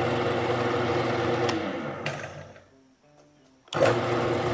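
Wen 12-inch variable speed drill press motor running with a steady hum. About a second and a half in it is switched off with a click and spins down. Near the end it is switched back on and starts up abruptly.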